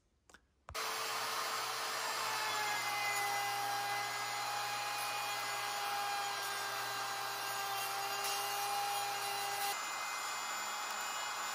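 Porter-Cable router with a large round-over bit running and cutting along the corners of a hickory axe handle, hogging off material. A steady high-pitched machine whine with cutting noise begins abruptly about a second in.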